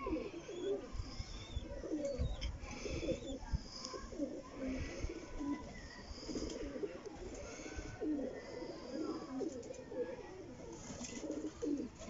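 A flock of domestic pigeons cooing, many low coos overlapping one another without a break.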